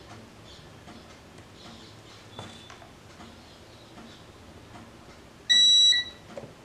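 Handheld gas leak detector beeping as it powers up: a loud, high beep about five and a half seconds in, lasting half a second, with a short second beep right after. A faint short beep comes earlier, over faint regular ticking.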